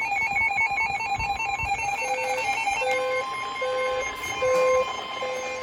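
Electronic weather-alert alarm tones: a fast two-pitch warble for the first three seconds, then a steady alert tone, the kind a NOAA Weather Radio sends before a warning, joined by a lower beep repeating a little faster than once a second.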